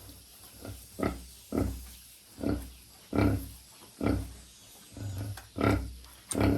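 Sow giving a rhythmic series of short, low grunts, about one a second, getting louder from about a second in.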